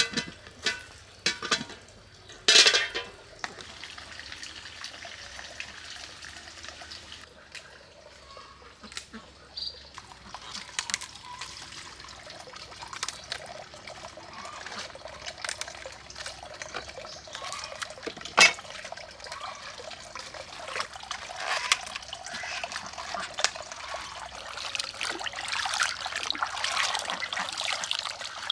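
Water splashing and trickling, growing busier in the second half, with a few sharp knocks in the first three seconds and another about eighteen seconds in.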